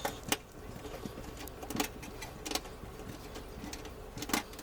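A few light clicks and taps of a nut driver on an oven heating element's mounting screw as it is being unscrewed, spaced out over several seconds above a faint low hum.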